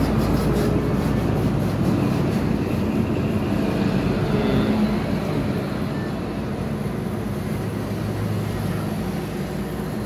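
Steady low background rumble and hiss, with no clear single event.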